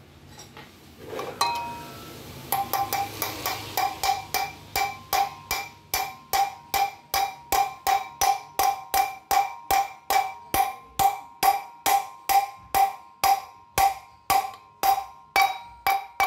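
Hammer blows on a metal drift driving a new 6202 ball bearing into a Yamaha FZ 250 front wheel hub. The blows start a couple of seconds in and come steadily at about two to three a second, each with a short metallic ring.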